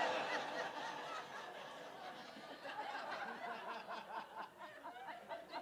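Theatre audience laughing at a comedy bit, loudest at the start and slowly dying down.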